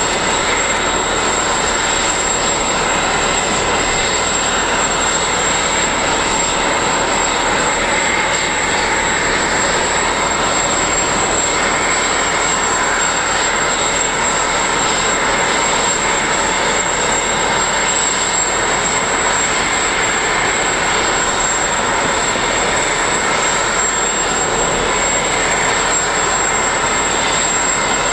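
Boeing 787-8 auxiliary power unit running while the airliner is parked at the gate: a steady jet whine with a high, unchanging tone over an even rush of noise.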